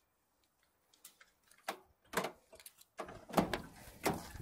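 Vauxhall Tigra's door being unlocked and opened: a few sharp clicks from the handle and lock, then a louder clunk about three and a half seconds in as the latch releases and the door swings open, with more clicks near the end.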